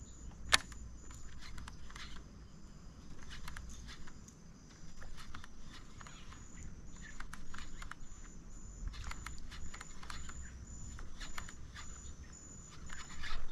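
Quiet outdoor ambience with scattered small clicks and knocks, one sharper click about half a second in, and a faint high-pitched call that pulses evenly throughout.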